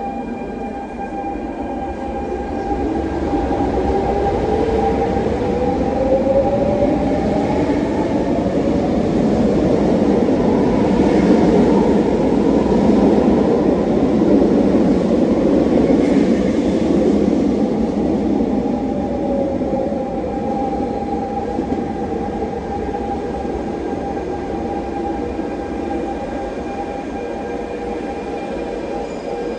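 RER A MI09 double-deck electric train pulling out of the station: its traction motors give a whine that rises in pitch as it picks up speed. The rumble of the cars passing swells to its loudest about halfway through, then fades as the train leaves.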